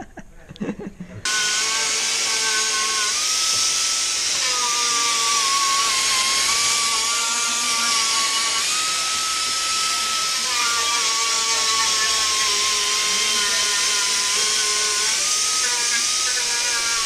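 Small angle die grinder with a red abrasive disc working the rim of a steel AOD transmission oil pan: a steady high whine over hiss, starting about a second in, its pitch stepping down and back up several times as the disc is pressed onto the metal and eased off.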